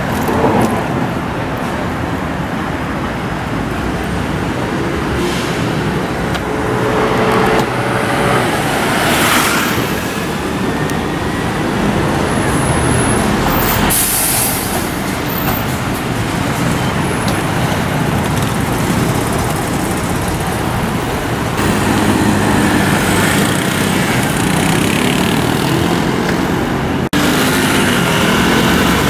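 Steady city street traffic, cars and a truck passing, with a short hiss like a truck's air brakes about halfway through. Near the end, scooter engines run close by.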